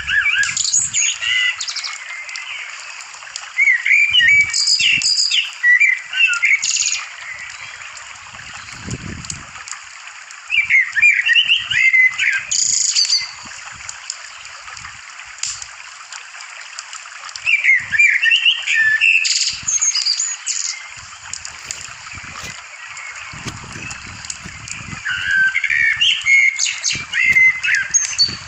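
Songbirds singing and chirping in bursts of quick, warbling phrases every several seconds, over a steady background hiss.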